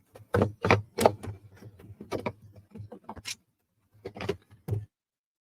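Thin wooden puzzle pieces clacking and tapping as they are handled and fitted together: an irregular run of sharp knocks that stops near the end.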